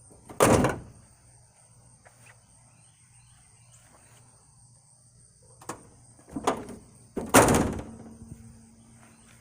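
Two heavy slams of the pickup truck being shut, one about half a second in and one near the end, with a lighter click and thump shortly before the second.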